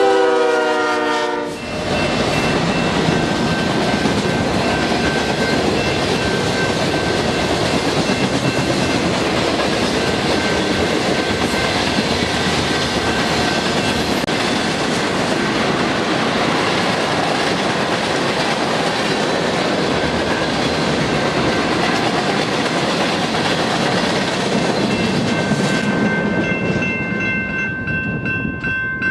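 A locomotive horn chord falling in pitch as the lead units pass, cutting off about a second and a half in. Then a BNSF freight train rolls by at speed, a loud steady rush and wheel clatter on the rails. Near the end the train noise thins and a steady high tone with a regular beat comes through.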